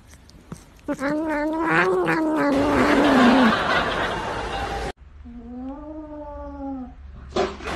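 Domestic cat giving a long, wavering meow that drops in pitch at the end, then, after a sudden cut, a second cat's shorter drawn-out yowl that rises and falls.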